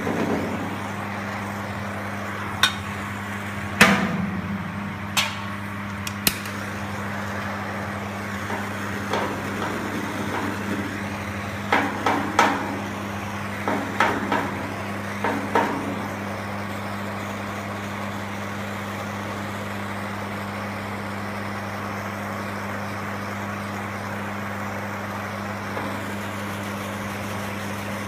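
Scattered sharp knocks and clinks of tools on metal, singly at first and then in small clusters partway through, over a steady hiss and hum. The knocks stop after about the middle.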